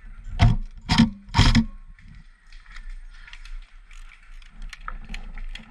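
Airsoft rifle firing three short bursts about half a second apart in the first two seconds, each a quick mechanical clatter; then faint scattered clicks.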